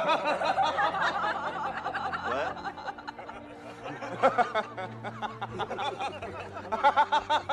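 A man chuckling and snickering in several bursts: a long stretch of laughter at the start, a short burst about four seconds in, and another near the end.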